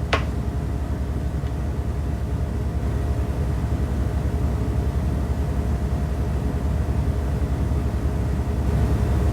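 Steady low rumble with a faint steady hum above it, unchanging throughout.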